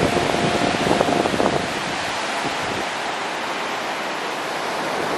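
Steady rush of surf breaking over the rocks at the foot of a sea cliff, heard from the clifftop above.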